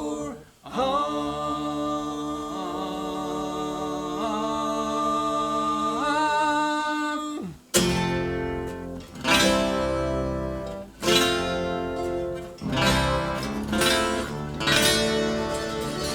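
Acoustic string band of guitar, mandolin, dobro and banjo holding one long sustained chord for about seven seconds, then coming in with loud strummed chord hits, a fresh attack every second or two.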